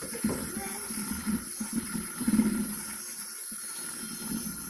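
Electric drill with a beater attachment running steadily inside a pumpkin, its motor hiss over a wet, churning sound as the beater whips the stringy pulp into strands.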